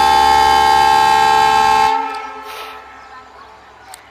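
Horn of a WDP4-class diesel locomotive sounding one long, steady blast as the train runs into the station. The blast stops about two seconds in and fades away, leaving the quieter rumble of the approaching train.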